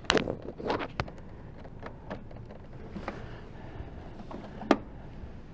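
Scattered clicks and knocks from equipment being handled while computers are switched. There is a cluster in the first second, a few lighter ticks after, and one sharp click near the end.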